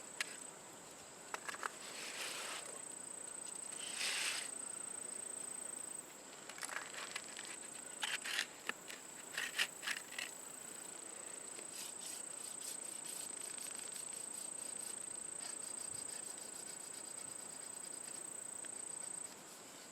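Steady high-pitched buzzing of insects such as crickets, with a handful of short scraping sounds in the first half.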